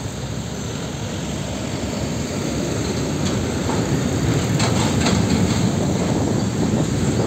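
Heavy diesel dump trucks, a Hino Ranger in front, running and pulling past at close range in slow traffic, growing steadily louder as they approach. A few short clicks or rattles come about five seconds in.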